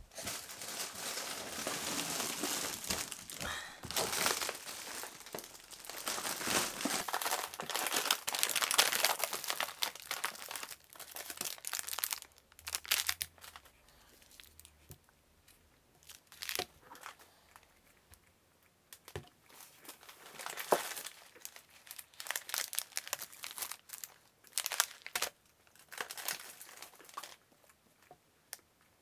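Plastic packaging and a potato chip bag crinkling as groceries are handled and unpacked onto a table: steady rustling for the first dozen seconds, then scattered crinkles and a few light knocks as items are set down.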